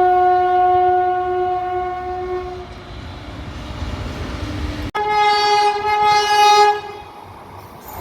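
Indian Railways train horns: one long, steady single-note blast fades out over the first two and a half seconds above the low rumble of a running train. After an abrupt cut, a second, slightly higher horn blast sounds for about two seconds.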